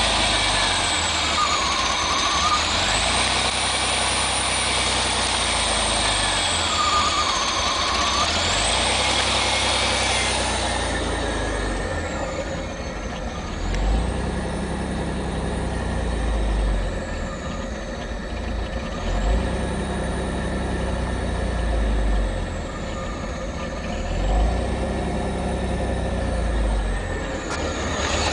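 1987 Pontiac Fiero GT's 2.8-litre V6 idling roughly on a cold start, the idle speed hunting up and down every few seconds, between about 1100 and 550 rpm. A high-pitched whine falls and rises again with each swing, which the owner takes for the intake.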